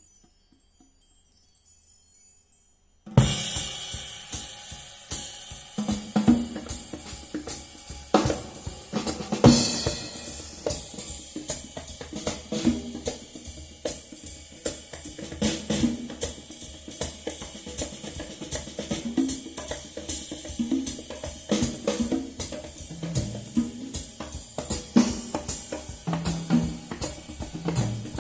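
Drum-kit percussion track played back through a hi-fi system of a Unison Research Unico 50 amplifier and Teufel M200 speakers, picked up by a phone's built-in microphone. It has kick drum, snare, hi-hat and cymbals. After about three quiet seconds with faint ticks, it comes in suddenly at full level.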